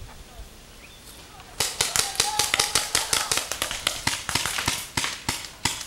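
Paintball markers firing in rapid strings of sharp pops, several shots a second, starting about a second and a half in after a quiet stretch.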